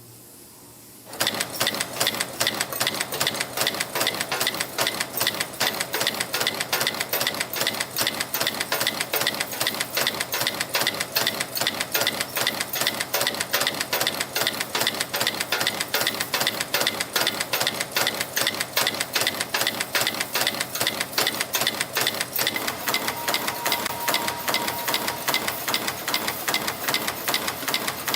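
Yeou Huei FB-230 CNC wire-forming and stamping machine starting up about a second in, then running with a fast, steady, rhythmic clatter of stamping and bending strokes as it forms 5.3 mm wire into safety pins.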